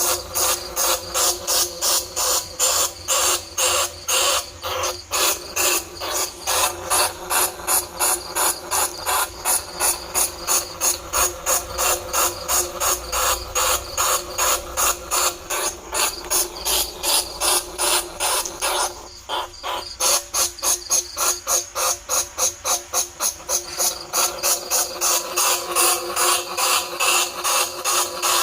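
Bandicoot rat squeaking over and over, the kind of call played to lure rats. The sharp squeaks come about three a second, with a brief pause about two-thirds of the way through.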